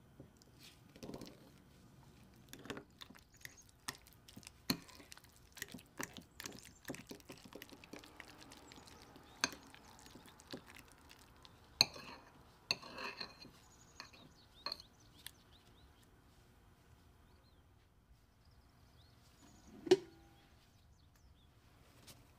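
A metal fork beating cream cheese and egg in a glass bowl: irregular clinks and taps of the fork against the glass, thinning out after about two-thirds of the way. One louder thump near the end.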